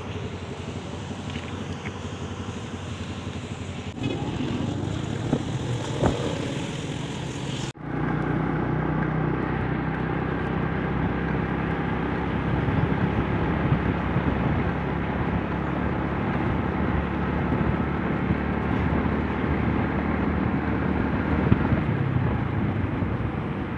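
Motorcycle riding along a road: steady engine and road noise, with an abrupt cut about eight seconds in, after which the low engine hum carries on steadily.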